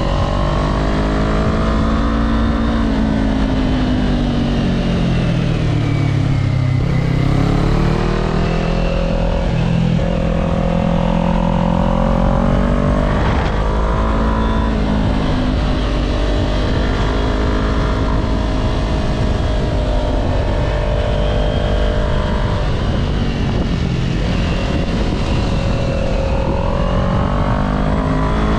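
Kawasaki Z400 parallel-twin engine under way, revs rising and falling repeatedly with the throttle, over a heavy low rumble of wind on the microphone.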